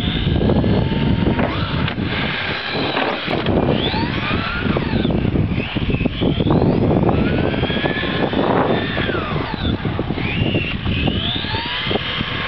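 Maverick Strada SC electric RC short-course truck's 6.5T sensored brushless motor whining, its pitch rising and falling again and again as the truck accelerates and slows, over a loud rushing noise.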